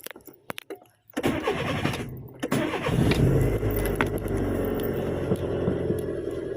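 Petrol car engine being started: the starter cranks briefly about a second in, the engine catches, then settles into steady running.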